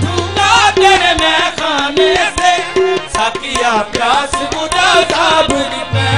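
Qawwali music between sung lines: a fast, ornamented melody that glides up and down, over a steady tabla rhythm.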